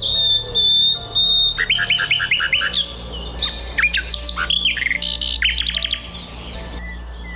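Songbirds singing and chirping: a long high whistle at the start, then runs of quick chirps and fast trills from several calls overlapping.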